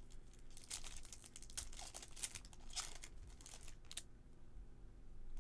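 Crinkling and ripping of baseball card pack wrappers being torn open and handled. It comes as an irregular run of crackles and tears that dies down about four seconds in.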